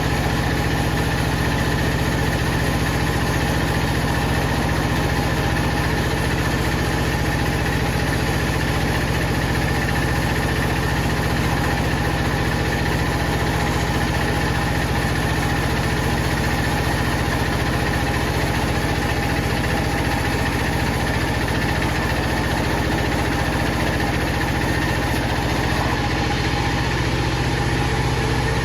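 Power saw running steadily: a constant low hum with a steady whine above it.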